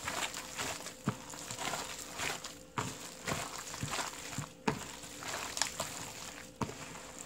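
Wet squelching and slapping of salted napa cabbage being tossed by a rubber-gloved hand with chili-pepper seasoning in a large bowl, in irregular smacks and rustles.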